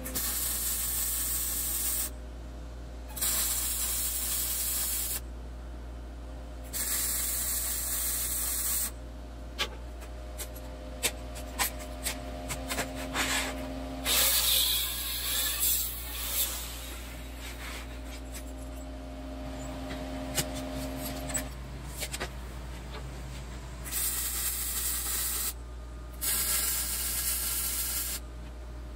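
MIG welder crackling as it lays short beads on the steel firebox door of a smoker, in bursts of about two seconds with breaks between. Around the middle an angle grinder runs on the steel for several seconds, and the welding resumes near the end.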